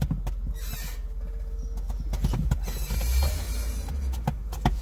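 Irregular clicks and knocks of footsteps and a dog's paws on rocky ground as the dog is let out, over a steady low rumble.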